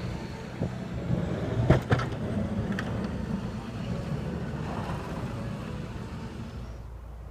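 A motor vehicle running amid steady outdoor street noise, with a few sharp knocks about two seconds in.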